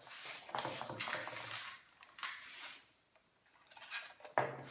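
Metal tools and hardware being handled, clinking and rattling in short irregular bursts, with a brief pause about three seconds in.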